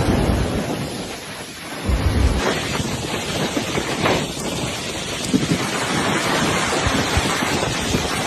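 Rough storm sea: surf crashing and churning, with strong wind buffeting the microphone. The noise dips briefly about a second in, then surges loudly again about two seconds in.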